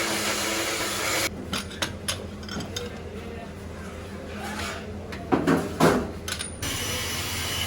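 Metal objects clinking and knocking as they are handled, with the loudest knocks between about five and six seconds in. A steady hiss of background noise is heard at the start and again near the end.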